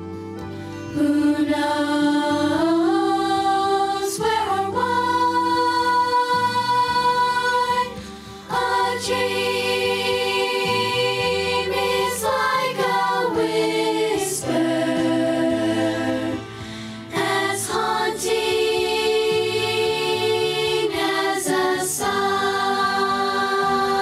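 Music: voices singing a slow song in long held notes over a steady accompaniment, with two short breaks between phrases.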